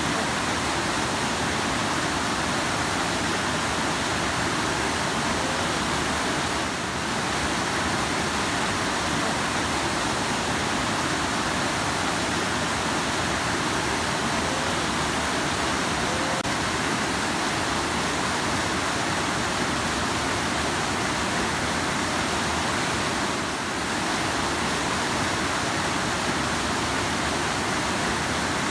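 Rushing river water, a steady, even rush of flowing water.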